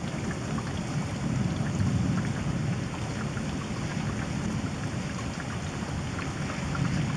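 Steady rain with scattered close raindrop ticks, over a low rolling rumble of distant thunder that swells about two seconds in.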